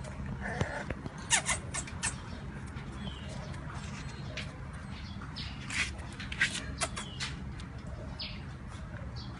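English Bulldog puppy giving short, scattered yips and squeaks, over a low steady hum.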